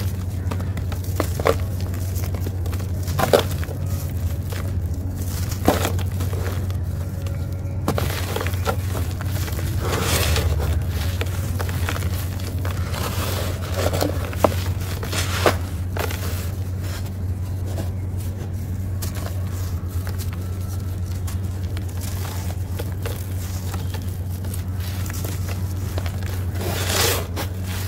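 Hands crushing and crumbling dry, dusty, gritty slabs and chunks into powder: a sharp crunch or snap every few seconds as pieces break, between softer gritty rubbing and sifting, over a steady low hum.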